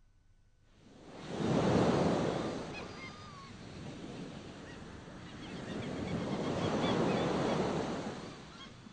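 Ocean surf washing in two swells, with faint high chirps and whistles over the water noise.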